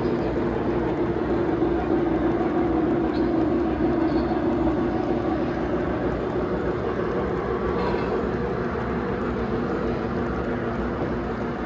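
Three-rail O gauge model train running along the layout track: a steady rumble of wheels and motor on the rails.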